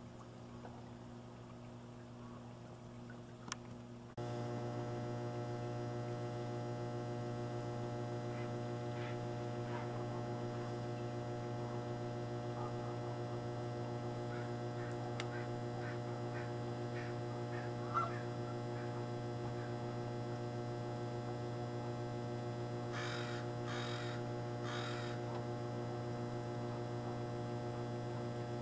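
A steady low hum with a row of even overtones, jumping louder about four seconds in. Over it come scattered short bird calls, then three harsh calls close together near the end.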